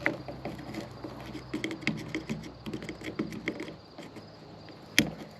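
Small plastic washer-hose clips being worked by hand: irregular scratching and light plastic clicks, with a sharp click about five seconds in.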